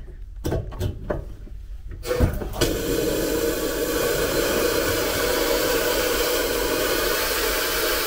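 A few knocks as a drain valve is handled, then, about two and a half seconds in, compressed air and condensate start blowing out of the drain line from a passenger carriage's air-receiver tanks in a steady, loud hiss that goes on.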